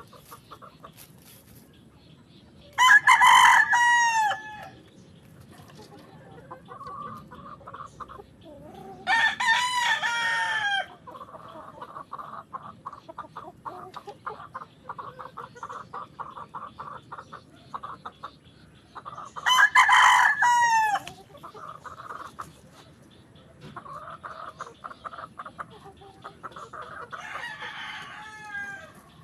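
Gamefowl roosters crowing four times, each crow about a second and a half long, the last one fainter, with quieter rapid clucking between the crows.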